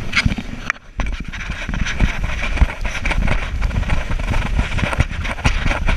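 Wind buffeting the camera's microphone and water spray rushing past an inflatable ring towed at speed across the sea, with a brief dropout just under a second in.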